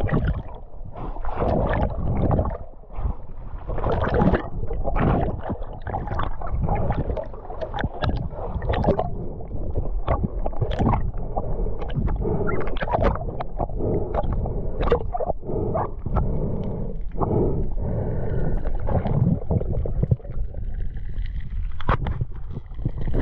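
Underwater sound picked up by a camera in a waterproof housing while a freediver swims hard with a speargun: a muffled, churning water rumble with many irregular clicks and knocks.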